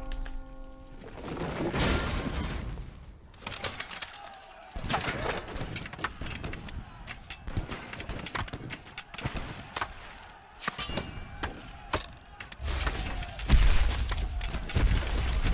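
Animated-film sound effects of a boulder and a stone giant crashing down a mountainside: many sharp cracks and thuds of rock on rock over a rumble, which swells deep and loud near the end.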